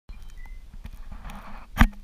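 A single sharp knock close to the microphone about 1.8 seconds in, the loudest sound here. Just before it there is a short soft hiss, and under it all a low rumble with a few small ticks.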